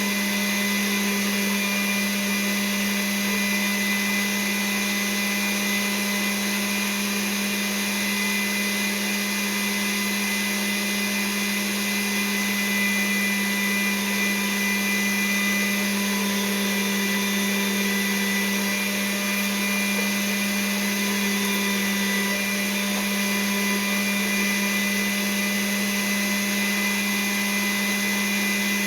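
Electric food mixer's motor running steadily with a constant hum, blending the ground-meat filling.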